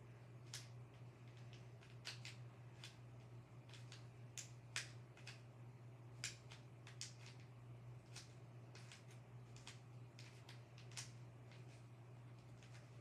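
Faint, irregular clicks of a plastic puzzle cube being twisted by hand, about one or two turns a second, sometimes two in quick succession.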